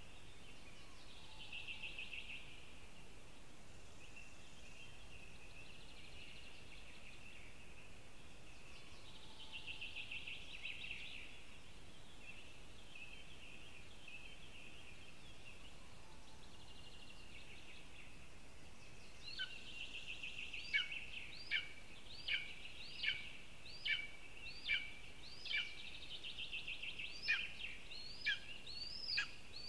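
Wild birds calling in spruce forest: high trilled songs come and go, and from about two-thirds of the way in a bird gives a regular run of short, high calls, each rising and falling in pitch, a little over one a second.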